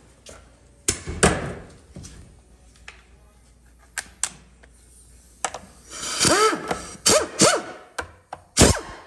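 Metal parts and hand tools knocking and clanking on a GM 8L90 automatic transmission being taken apart on the bench. There are scattered sharp knocks, with the loudest about a second in and near the end. Between them come a few short squeaks that rise and fall in pitch, about six to seven and a half seconds in.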